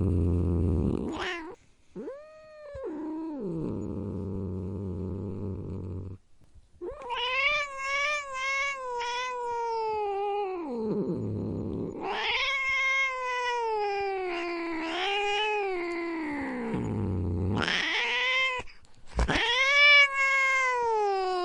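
Angry domestic cat growling and caterwauling: deep rumbling growls that swell several times into long, wavering yowls.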